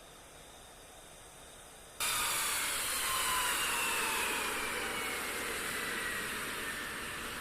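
Faint steady hiss, then about two seconds in a loud jet noise starts abruptly: an F-35B's Pratt & Whitney F135 engine, a rushing roar with a whine that falls steadily in pitch.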